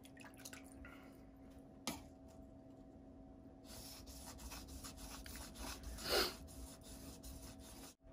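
Water dripping and splashing as a whetstone is wetted by hand from a bucket and rubbed over, with small ticks and one sharper click about two seconds in. A faint steady hum runs underneath.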